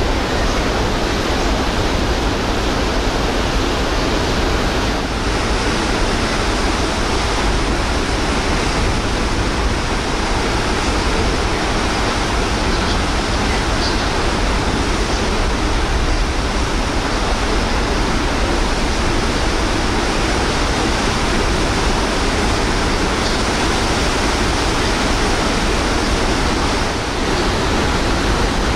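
Steady, loud rush of wind and churning sea water from the deck of the ferry Blue Star Patmos under way, with a low rumble of wind on the microphone.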